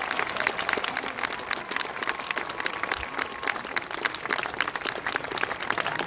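Crowd applauding: many hands clapping, some of them close by.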